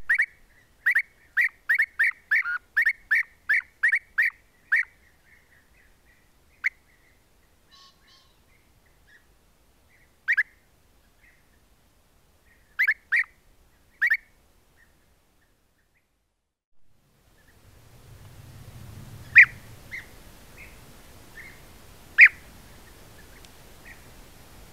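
European bee-eaters calling: a quick run of about a dozen short, clear calls, about two a second, then scattered single calls and pairs. Near the end a low outdoor rumble and hiss come in, with two more loud calls over it.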